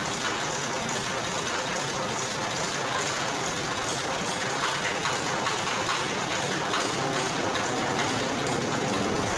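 Motorized sugarcane press running, its rollers crushing cane stalks with a steady mechanical noise and faint crackling.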